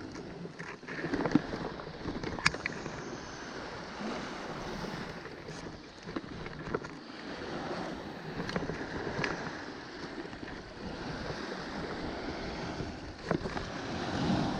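Sea surf washing onto a sandy beach, swelling and easing, with wind buffeting the microphone and a few sharp clicks.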